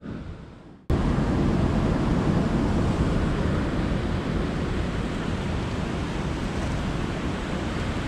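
Steady rushing of a waterfall and whitewater creek. It cuts in suddenly about a second in, after a brief quieter moment.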